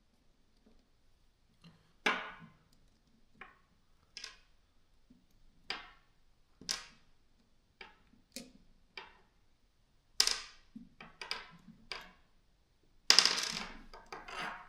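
Small hard parts of a cordless drill being handled and fitted by hand: a string of about a dozen sharp clinks and clicks, with a longer, louder cluster of rattling near the end.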